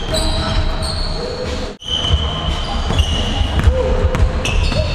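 Basketball bouncing on a hardwood gym floor with sneakers squeaking during full-court play. The sound cuts out sharply for a moment a little under two seconds in.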